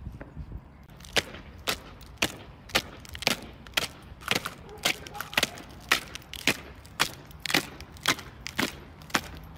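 Marching boots of a three-member flag party striking stone paving in step: sharp footfalls about twice a second, starting about a second in.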